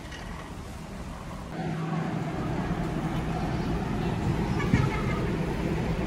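Shopping cart rolling across a concrete floor, a steady rolling noise that gets louder about a second and a half in.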